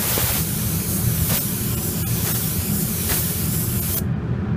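Compressed-air paint spray gun spraying paint in a steady hiss, cut off sharply about four seconds in as the trigger is released. A steady low hum runs underneath.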